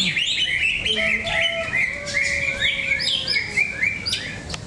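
Male green leafbird (cucak ijo) singing a fast, varied run of chirping notes that jump up and down in pitch, with a few lower whistled notes mixed in.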